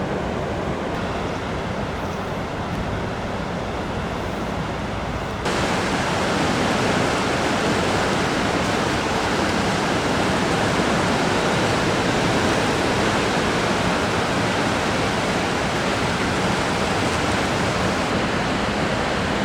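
Steady rushing of the Tagus River's water at a dam. The even noise becomes suddenly louder and brighter about five and a half seconds in.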